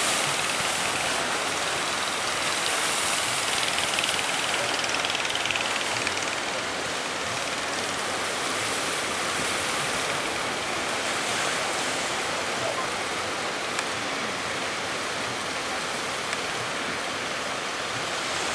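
Steady rushing roar of breaking surf and churning seawater, an even wash of noise without distinct strokes.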